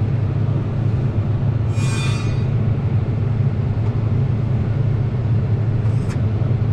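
Farm machine's engine running steadily, a constant low drone heard from inside the cab. A brief hissing burst comes about two seconds in.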